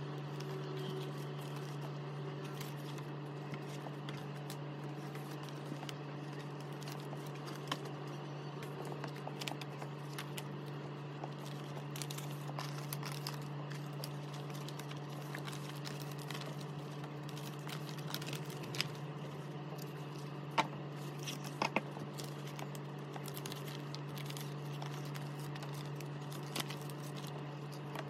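Plastic photocard sleeves, toploaders and binder pages crinkling and clicking as they are handled and sorted, with a few sharper clicks, over a steady low hum.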